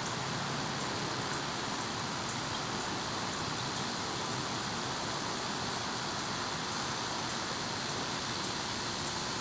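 Steady outdoor background noise: an even rush at a constant level, with no distinct calls or knocks standing out.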